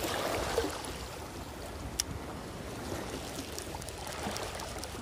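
Small sea waves lapping and washing against shoreline rocks. Clothing rustles against the microphone in the first second, and a single sharp click sounds about two seconds in.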